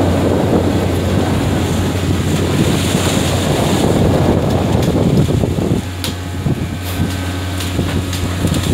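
Wind buffeting the microphone on the deck of a tuna fishing boat at sea, over a steady low hum from the boat's engine and the rush of the sea along the hull.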